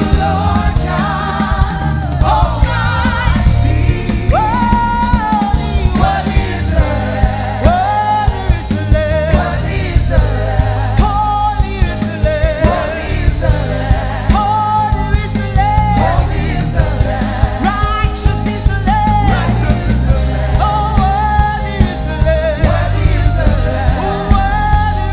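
Live worship band music: a singing voice carries a wavering melody over the full band, with a steady drum beat.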